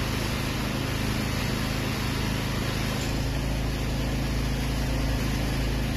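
Remote-control boom sprayer's small petrol engine running at a steady speed, with an even hiss over it.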